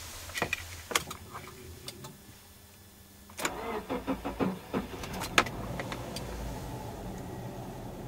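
A few clicks, then the Subaru Forester's 2.0-litre flat-four boxer engine cranks with several uneven pulses about three and a half seconds in. It catches a little after five seconds and settles into a steady low idle.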